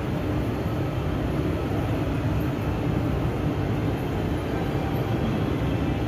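Steady low rumbling ambient noise with no distinct events.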